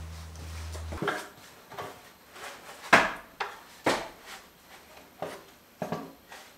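Wooden planks being knocked and set against a wooden barn wall: a run of sharp, hollow wooden knocks about every half second or so, the loudest about three seconds in. A low steady hum stops about a second in.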